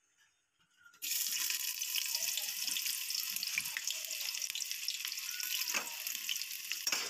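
Near silence, then from about a second in, hot oil sizzling steadily in an aluminium pressure cooker on a gas stove, with a couple of knocks near the end.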